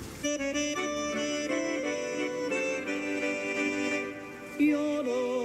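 Music: a slow melody of held notes that change every half second or so, with a wavering vibrato from about four and a half seconds in.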